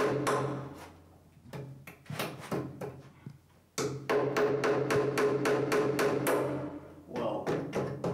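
Small hammer tapping small nails into the wooden ribs of a model boat hull. The strikes come in quick runs of about five a second, with a pause and a few scattered taps between the runs.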